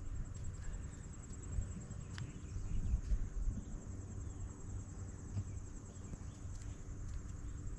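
Insects chirring in a steady, high, finely pulsing drone, over a low uneven rumble on the microphone.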